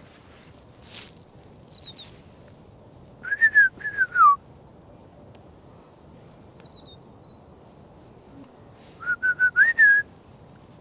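Two loud runs of clear whistled notes, about a second each, rising and falling in pitch, a few seconds in and again near the end. Thin high chirps come earlier and in between.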